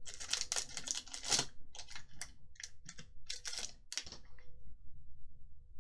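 Foil wrapper of a Magic: The Gathering Core Set 2021 booster pack being torn open and crinkled in the hands: a quick run of crackling rustles that stops about four seconds in.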